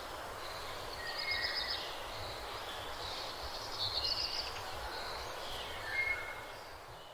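Birds chirping and trilling over a steady outdoor hiss, fading out near the end.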